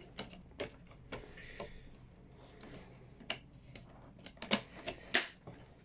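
Plastic parts of a Vax Blade cordless vacuum being pushed and snapped back together over its repaired power switch: scattered clicks and knocks of plastic against plastic with faint handling noise, the loudest click about five seconds in.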